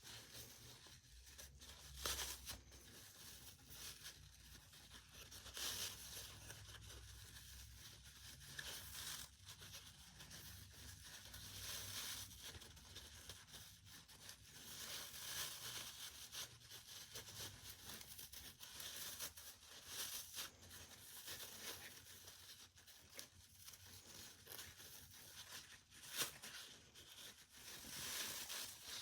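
Faint rustling and rasping of a nylon belt sleeve and Velcro being folded and worked by hand, with scattered short tearing sounds.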